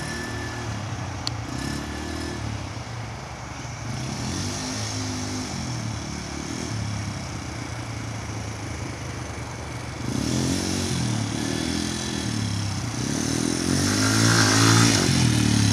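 Quad bike engine running, its pitch rising and falling with the throttle. It gets louder about ten seconds in and again toward the end, as if coming closer.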